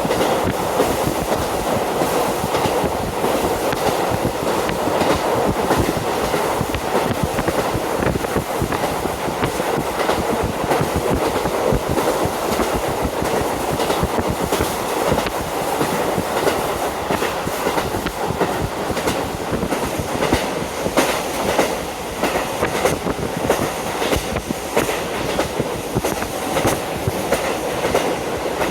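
Inside a JR Hokkaido KiHa 40 diesel railcar running along the line with a window open: steady wind rush mixed with running and wheel noise, and the clickety-clack of the wheels over rail joints.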